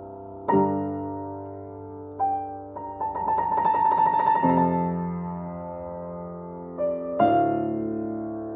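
Solo grand piano. A loud chord is struck about half a second in and left ringing, a quick flurry of notes runs through the middle, and another loud chord comes near the end.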